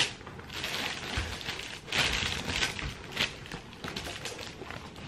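Rustling of cloth and plastic wrapping as clothes are handled on a floor, in irregular bursts with a few light knocks.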